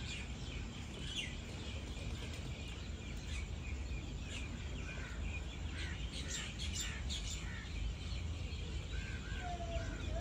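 Small birds chirping on and off over a steady low background noise, with a few clearer whistled bird notes near the end.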